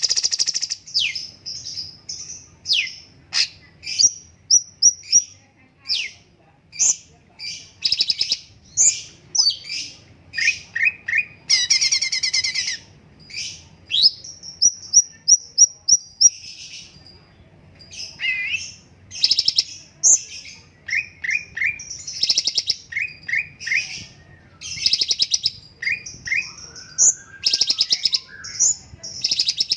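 A cucak cungkok, a bulbul, singing busily: quick runs of short, high whistled notes mixed with rapid chattering trills, with only brief pauses.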